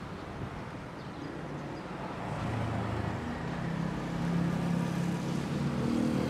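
Street traffic, with motor scooters riding past close by; their engine hum grows louder over the last few seconds.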